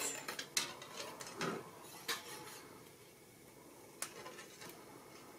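Small clicks and light rattling of seed beads and thin utility wire being handled as the beaded wire is wrapped around a wire cross. The clicks come mostly in the first two and a half seconds, with one more about four seconds in.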